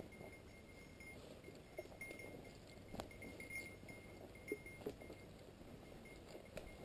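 Small bell on a hunting dog's collar tinkling faintly and irregularly as the dog moves through cover, with a few sharp clicks, the clearest about three seconds in.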